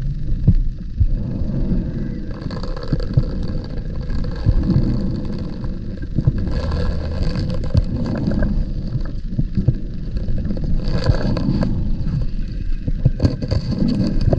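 Scuba diver breathing underwater: a regulator hiss with each inhalation, four breaths in all, between stretches of rumbling, gurgling exhaled bubbles.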